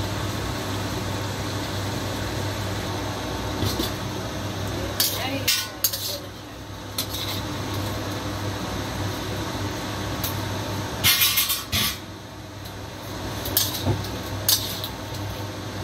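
A metal lid and a metal spatula clank against a stainless steel wok as the lid comes off and the chicken wings and potatoes are stirred. The clanks come in scattered groups over a steady low hum.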